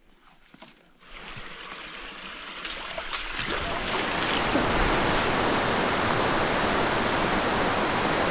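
Rushing whitewater of river rapids in a gorge, starting faintly about a second in and swelling over the next few seconds to a steady loud rush. A few faint footstep clicks on the trail come before it.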